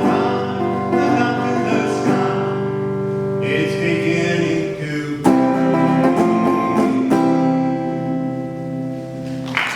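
Closing bars of a song with guitar and singing: strummed chords, the last one held and dying away, with applause breaking out at the very end.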